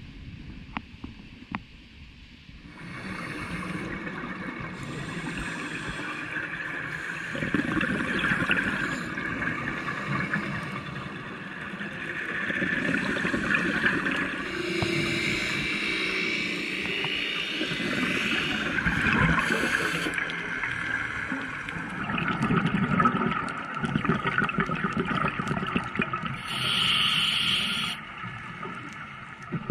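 Underwater sound from a diver's camera: scuba bubbles gurgling and rushing, swelling and fading every few seconds. The first couple of seconds are quieter, with a few clicks.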